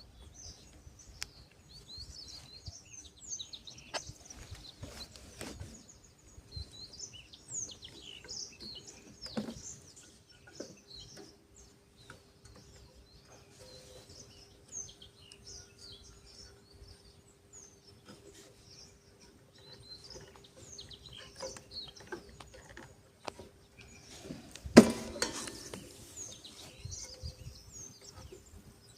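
Small birds chirping and tweeting continually, over a faint steady hum, with scattered clicks and knocks from hand tools at work; the loudest is a single sharp knock near the end.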